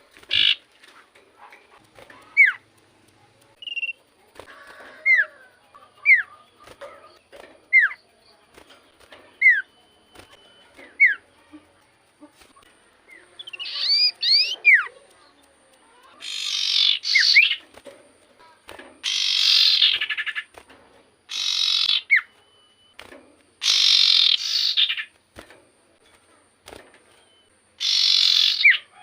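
Common iora (cipoh) calling vigorously: a string of short, falling whistles about one a second, then, from about halfway through, loud harsh rasping chatters about a second long every two or three seconds.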